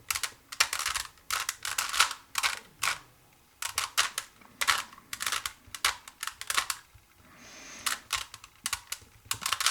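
Rubik's Cube being scrambled by hand: the plastic layers are twisted in quick succession, a rapid run of clicks and clacks with a short pause about three seconds in.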